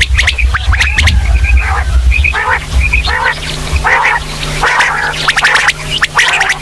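Female quail calling: short call notes repeated every second or so, mixed with many sharp clicks, over a low rumble that fades out about three and a half seconds in.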